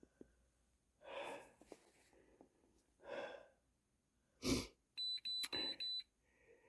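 A quick run of four short, high electronic beeps from a handheld OBD scan tool as it resets the codes. Before the beeps come two soft breaths and a short loud puff.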